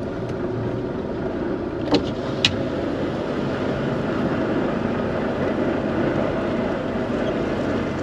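Semi-truck diesel engine running steadily, heard inside the cab as the tractor-trailer reverses slowly. Two short sharp clicks about two seconds in.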